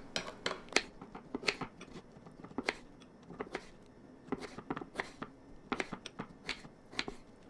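Utensil clicks and taps against a ceramic bowl and a wooden cutting board as a bowl of oatmeal with strawberries is made: scattered sharp clicks, about two a second.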